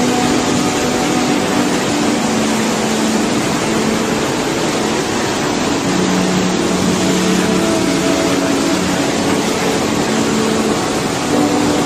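Tsunami surge churning over a seawall and through trees: a loud, steady roar of rushing water.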